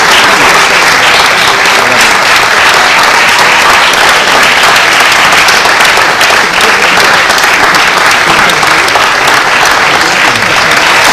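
Audience applauding, loud and continuous.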